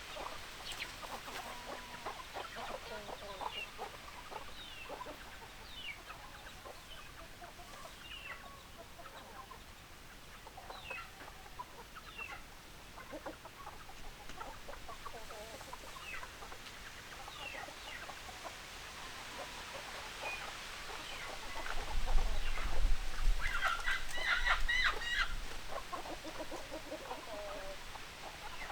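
Chickens clucking, with many short calls scattered throughout. About 22 seconds in comes a louder stretch of calls lasting a few seconds, with a low rumble under it.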